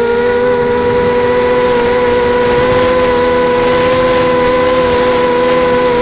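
QAV280 quadcopter's brushless motors and propellers whining at a steady pitch, heard loud and close from the camera on its frame, with a thin high tone above; the pitch dips slightly at the very end.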